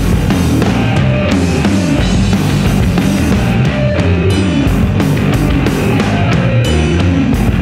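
Rock band playing an instrumental passage: distorted electric guitar, a Rickenbacker four-string bass and a drum kit, loud and dense throughout.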